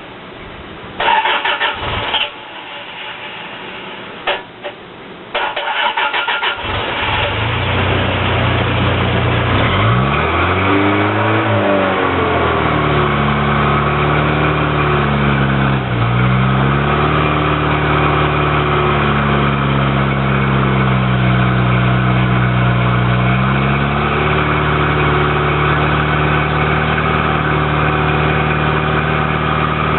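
Toyota 22R four-cylinder engine running on wood gas from a gasifier: the starter cranks in short bursts, the engine catches about seven seconds in, revs up and falls back, then its speed rises and dips a few times before settling into a steady run.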